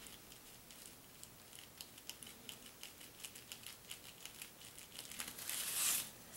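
Fine-tipped paint pen tapping and scratching on a card hang tag: a quick run of faint ticks as small marks are dotted along its edge. Near the end the tag slides and rustles briefly against the paper table covering, a little louder.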